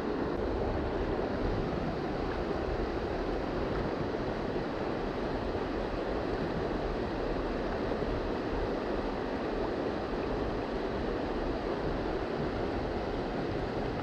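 Swollen creek water rushing steadily, a continuous rush of fast-flowing water running high after a typhoon.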